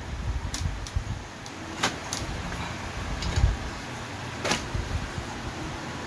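Plastic housing of a Brother portable typewriter being handled and worked loose from its frame: low handling rumble with a few scattered sharp clicks and knocks, the loudest about four and a half seconds in.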